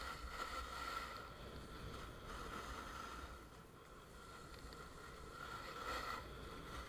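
A snowboard running over snow, a continuous scraping hiss that swells and eases every few seconds.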